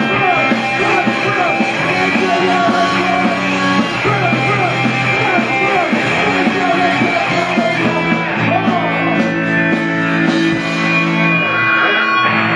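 Live punk band playing loud amplified rock music, with electric guitar and held chords throughout.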